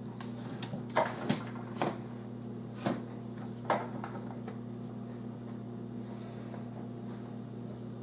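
Five sharp knocks and clicks from rummaging through a kitchen cupboard for a spice container, all within the first four seconds, over a steady low hum.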